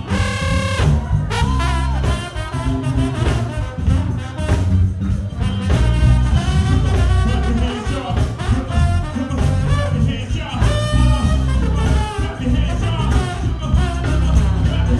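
Live band playing loud, with a trombone over electric guitars, drum kit and a heavy bass.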